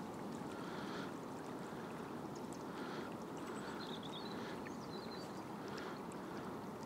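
Shallow river water running and rippling steadily, with soft swells in the flow about once a second.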